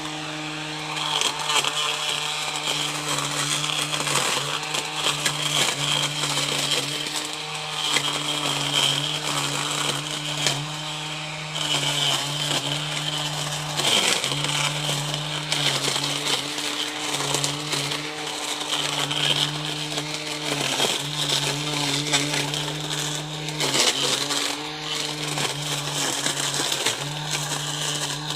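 21V cordless battery grass cutter running with a steady electric-motor whine and hiss, its pitch sagging briefly every few seconds as the cutting blade bites into grass.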